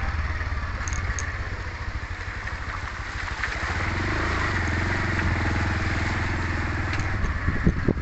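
Motorcycle engine running under way, a steady low rumble with a regular pulse; the engine note picks up and steadies about halfway through. Two sharp knocks come near the end.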